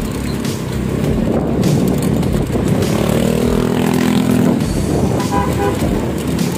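Street traffic with a motor vehicle's engine passing close by, its engine note strongest about three to four and a half seconds in.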